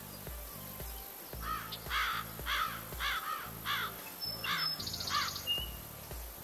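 Background music with a steady repeating bass line, over which a bird gives a run of about eight harsh calls, roughly two a second, from about one and a half seconds in until past the five-second mark.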